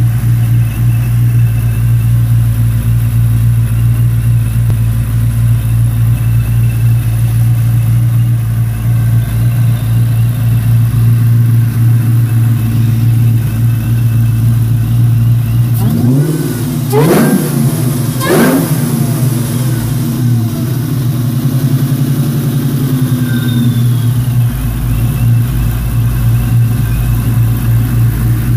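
2003 Mustang Cobra's supercharged 4.6-litre DOHC V8, with a Kenne Bell 2.8 twin-screw blower, idling steadily. A little past halfway it is revved twice in quick succession, the revs climbing and dropping straight back to idle each time.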